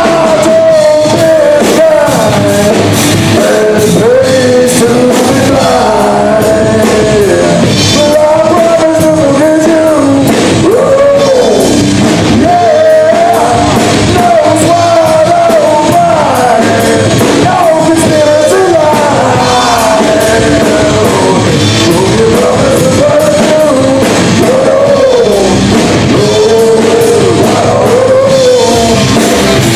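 Live rock band playing loudly: a singer's voice carries the melody over electric guitars and drums.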